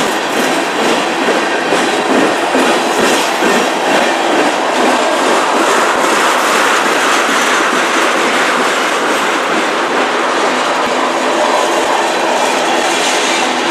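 Freight train cars (a boxcar and tank cars) rolling past close by: a steady, loud rumble of steel wheels on rail, with the clack of wheels over rail joints.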